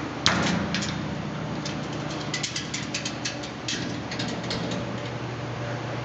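Handling noise: a sharp knock about a quarter second in, then a run of quick clicks and rattles for about three seconds, over a steady low hum.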